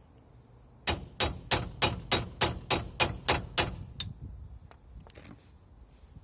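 A hammer striking metal: about ten quick, ringing blows at roughly three a second, then a few lighter knocks.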